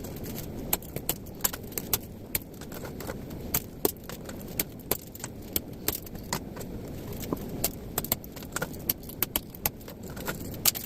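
Light switches being smashed apart with a hammer to free their brass: many sharp, irregular knocks and cracks, a few each second, over a steady low background hum.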